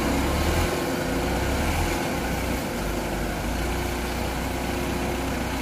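Engines of a tracked rice combine harvester and a small tracked cart running steadily as the cart tries to tow the combine, bogged down in deep mud, up out of the field.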